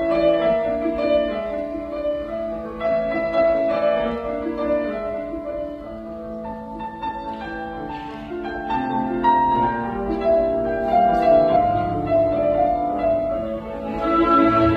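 Symphony orchestra playing classical music: a softer passage of changing sustained and plucked notes that dips in the middle and swells louder near the end.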